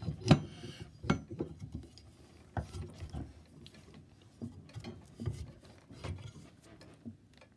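Irregular metal clicks and clanks of a nut being run down a threaded rod, clamping a steel plate onto a head gasket to press it flat. The loudest clank comes right at the start, then roughly one or two knocks a second.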